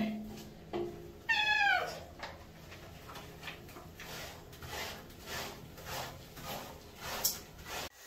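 A domestic cat gives one meow that falls in pitch, about a second in, while being bathed. Soft, evenly spaced scrubbing strokes follow, rubber-gloved hands working its wet fur.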